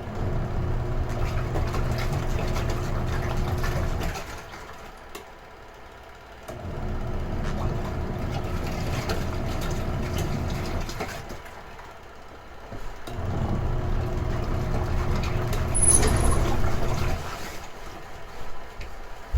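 Retro-type washing machine in its wash cycle: the motor hums and the water churns in runs of about four seconds, with a pause of about two seconds between runs as the agitator stops and reverses. A briefly louder clatter comes about sixteen seconds in.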